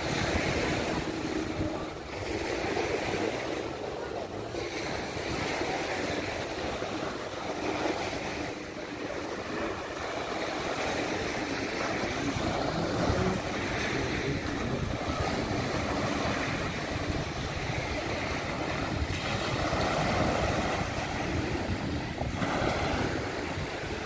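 Small sea waves breaking and washing up on a sandy beach in a steady wash of surf, with wind on the microphone.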